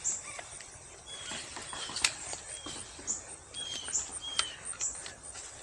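Small birds chirping in the background, a steady string of short, high chirps repeating every half second or so, with a few sharp clicks in between.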